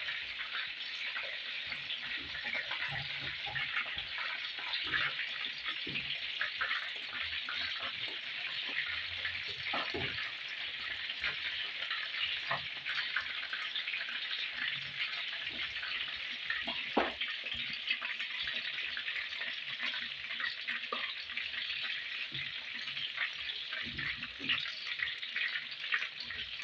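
Scotch eggs deep-frying in a pot of hot oil, with a steady crackling sizzle and a few light knocks as they are turned.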